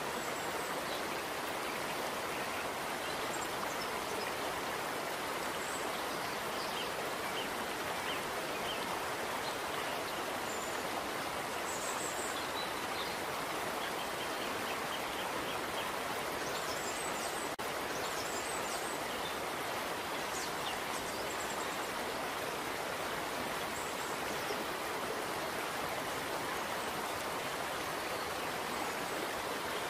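Steady rush of flowing water, with faint, short high chirps scattered through it.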